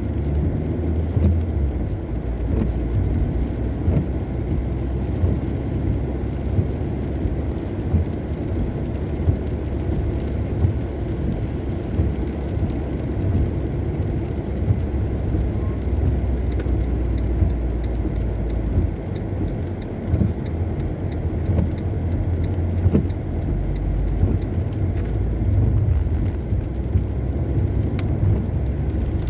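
Car driving on wet roads in the rain, a steady low rumble of road and engine. A regular light ticking, about two a second, runs for several seconds past the middle.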